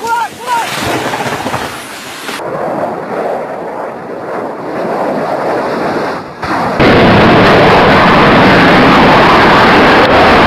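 Fighter jet's engines roaring at full power, a loud steady roar that cuts in suddenly about seven seconds in and overloads the microphone. Before it comes a rumbling, noisy wash from handheld footage.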